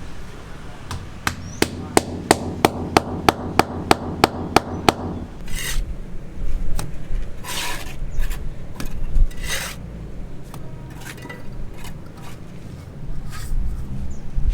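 Construction work with hand tools. About a second in comes a run of about a dozen sharp, evenly spaced knocks, roughly three a second, over a low hum. After that come irregular scraping and scattered knocks.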